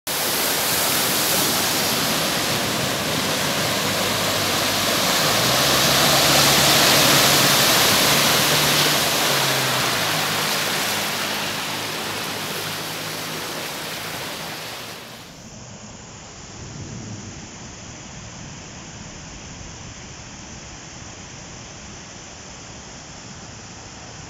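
Heavy rain and rushing floodwater making a loud, steady roar, with a low engine hum mixed in partway through as a car pushes through deep water on the road. About 15 seconds in it cuts to a quieter, duller steady rush of water running down a flooded street.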